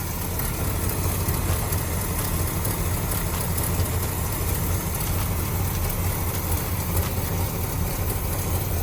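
1972 Oldsmobile Cutlass engine idling steadily with an even low rumble.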